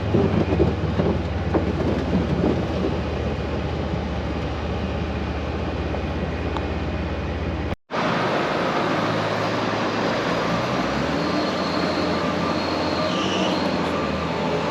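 Heavy farm harvest machinery running steadily with a deep engine hum. About eight seconds in the sound cuts out for an instant and gives way to a different steady machine drone.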